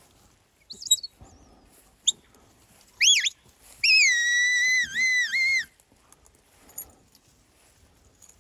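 Handler's herding whistle commands to a working sheepdog: a couple of short high chirps, then two quick rising-and-falling notes about three seconds in, then one long held note with two short dips near its end, lasting nearly two seconds.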